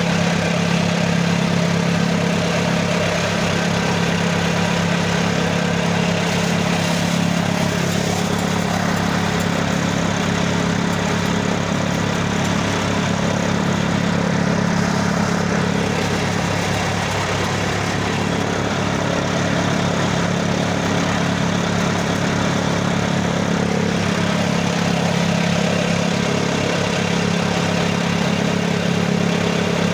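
Tractor engine running at steady speed, driving a PTO-mounted chaff cutter. The engine and the cutter drone together in an even, unbroken note with a fast low pulse.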